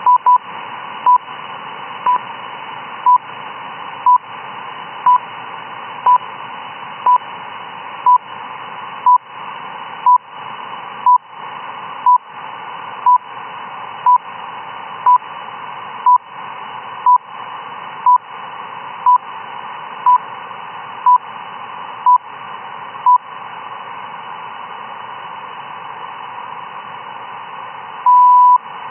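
RWM shortwave time signal received on an SDR in upper sideband: short 1 kHz beeps once a second over steady radio hiss. The beeps stop for about five seconds near the end, then one longer beep marks the start of the new minute.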